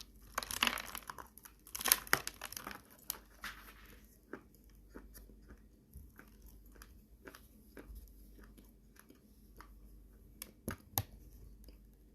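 Dry Orsk clay crunching and crumbling: a dense run of crackly crunches over the first few seconds, then scattered small crackles and a couple of sharp snaps near the end.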